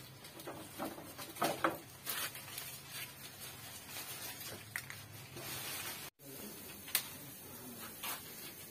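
Fresh leafy branches rustling as they are handled and stripped, with scattered sharp snaps and clicks of stems. The sound cuts out briefly about six seconds in.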